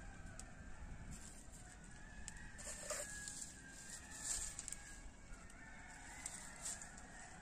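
A rooster crowing twice, long wavering calls, with a few sharp crackles from a small wood fire.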